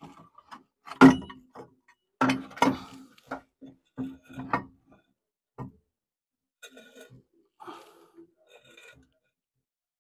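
Steel car exhaust pipe knocking and scraping against the engine and body as it is worked up into position, with several clanks that leave a short metallic ring, the loudest about a second in. Fainter knocks and rubbing follow in the second half.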